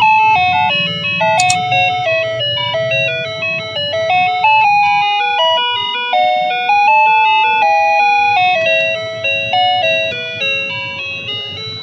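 Wireless remote-control doorbell receiver playing an electronic chime tune, one steady note at a time, stepping up and down in pitch. There is a single sharp click about a second and a half in.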